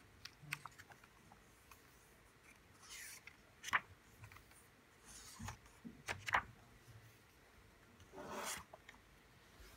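Pages of a small softcover photobook printed on 150 g paper being turned by hand: several soft paper swishes and rustles, with sharper flicks just under four seconds in and just after six seconds, and a longer swish near the end.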